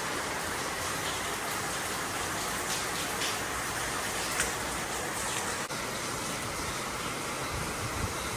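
Rain falling steadily, with a few louder drops standing out now and then.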